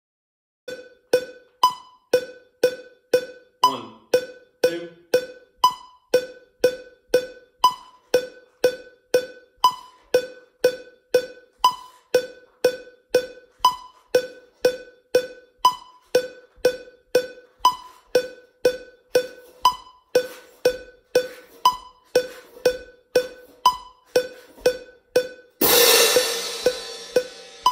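Metronome clicking at 120 BPM, two clicks a second, with a higher accented click on the first of every four. Near the end, a pair of marching crash cymbals crashes loudly over the click and rings for about two seconds before being cut off sharply.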